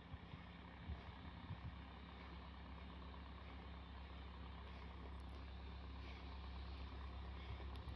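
Rotary snow blower's engine running steadily as it clears the snowbound road, a low hum that slowly grows louder. A few low thumps come in the first two seconds.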